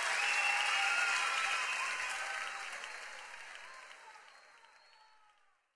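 Audience applauding, fading out steadily until it cuts off near the end.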